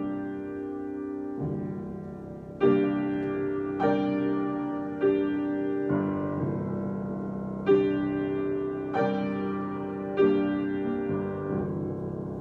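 Solo piano improvisation: slow chords struck about every second or so, each left to ring and fade before the next.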